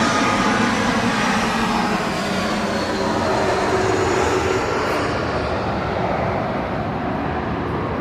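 2007 Porsche Cayman's 2.7-litre flat-six engine running with road and tyre noise as the car drives, the pitch slowly falling and the sound gradually fading.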